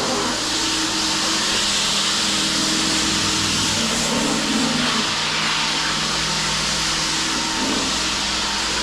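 A machine's electric motor running steadily, with a constant loud hiss and a few steady hum tones underneath.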